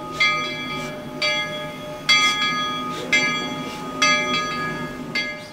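Locomotive bell on Denver & Rio Grande Western No. 340, a C-19 class 2-8-0 narrow-gauge steam engine, ringing steadily about once a second, each strike ringing on as the engine moves. A low rumble runs underneath.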